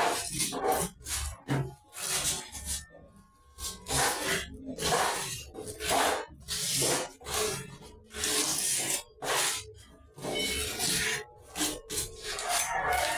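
Steel trowel scraping tile mortar across a wall and tiles in a dozen or so uneven strokes, roughly one a second.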